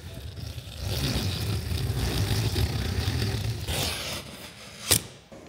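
Utility knife slicing along packing tape and plastic stretch wrap on a cardboard crate, a long scraping cut from about a second in to about four seconds, followed by one sharp snap near the end.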